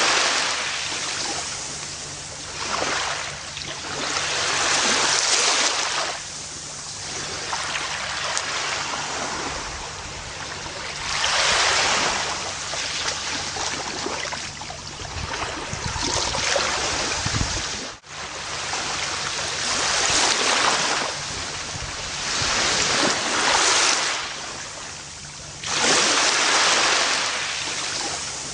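Gentle ocean waves washing onto a beach, a rush of surf swelling and ebbing every few seconds. About two-thirds through, the sound cuts out for an instant.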